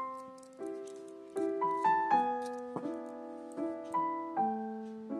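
Background piano music: slow chords and single notes, each struck and left to fade, a new one about every half second to a second.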